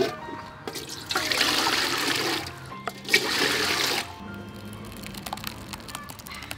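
Water poured into a large aluminium cooking pot in two pours, the first about a second in and the second about three seconds in, each stopping abruptly.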